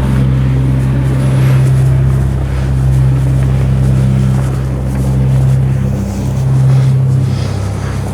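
Vehicle engine running steadily: a loud, low droning hum.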